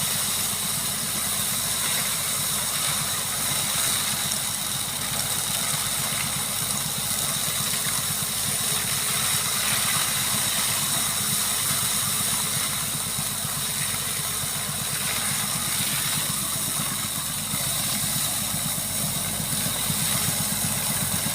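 Aydınmaksan FTM-035 tractor-mounted hazelnut vacuum harvester running steadily, the tractor engine and the suction machine giving an unchanging drone with a steady high whine over it.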